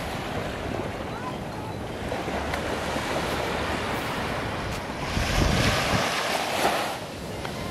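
Small waves washing onto a sandy beach, with wind rumbling on the microphone; the wash swells louder about five seconds in.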